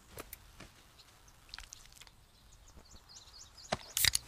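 Quiet cartoon outdoor ambience with faint bird chirps, then a few sharp clicks near the end.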